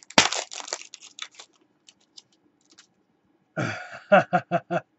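Trading-card pack wrapper being torn open and crinkled in the hands, a dense rustle for about a second and a half, then a few light clicks of cards. Near the end, a short burst of a man's voice in quick pulses.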